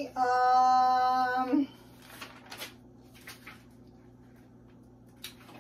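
A woman's steady wordless hum, held for about a second and a half, then a few faint light ticks and rustles, as of handling papers.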